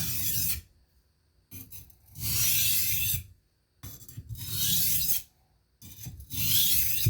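A knife blade pushed along a wet King 300-grit whetstone, a gritty rasp with each pass. There are four strokes with short pauses between them, the first ending about half a second in, as the coarse stone raises a burr on the edge.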